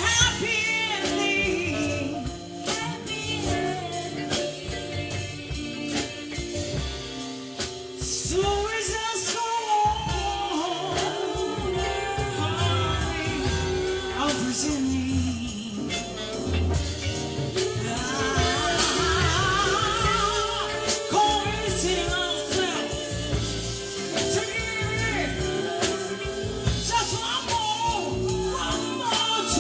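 Live soul band playing a slow song: a lead vocal sung over drum kit, bass, guitars and keyboards, with a steady drum beat throughout.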